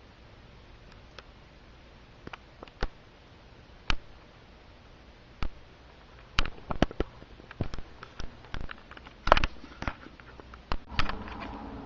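Irregular clicks and knocks, a few at first and busier from about halfway on, over a faint low hum. Near the end a steady hiss comes up.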